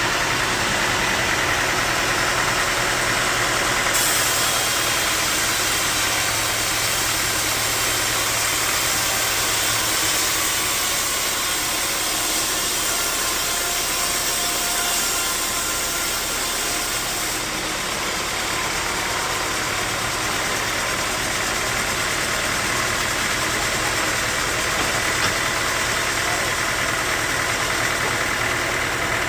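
Sawmill machinery running steadily with an engine-like drone, growing brighter and hissier from about 4 to 17 seconds in.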